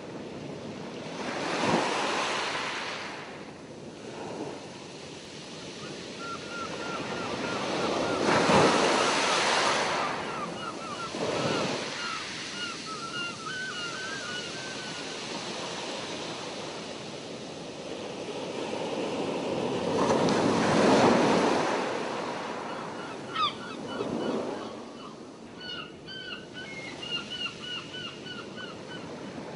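Surf: waves washing in, swelling and fading every few seconds. Twice, strings of quick repeated bird chirps sound over the surf.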